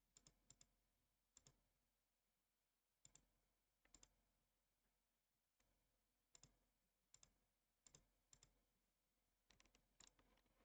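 Faint computer mouse clicks, about ten of them, mostly in quick pairs, scattered over near silence.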